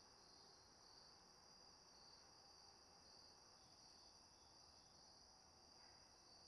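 Faint, continuous high trill of crickets chirping, swelling and fading slightly, over a low hiss.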